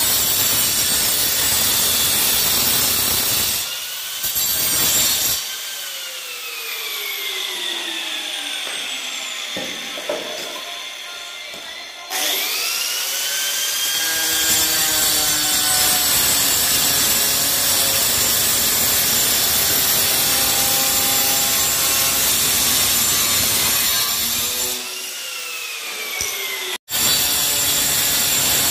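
Handheld electric angle grinder with a cutting disc cutting through stone floor tile: a loud grinding rasp over the motor's whine. About 5 s in the whine falls away as the grinder is switched off and spins down. It starts up again with a rising whine about 12 s in and cuts steadily, spins down again near 25 s, and after a sudden break the cutting starts again near the end.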